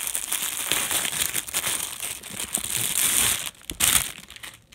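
Crinkling and rustling of product packaging being handled and opened with one hand, a dense crackle that dies down near the end after one last brief rustle.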